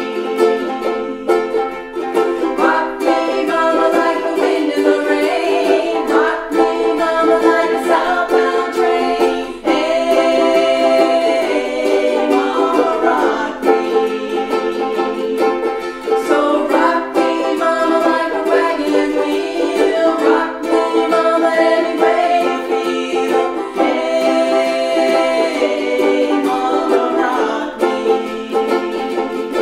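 Two ukuleles strummed together in a steady rhythm, playing the chords of a song.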